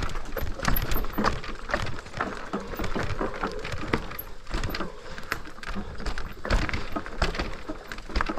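FEDDZ PF1 electric bike rattling over a rough trail: dense, irregular clatter and knocks from the bike and tyres on stones over a low rumble.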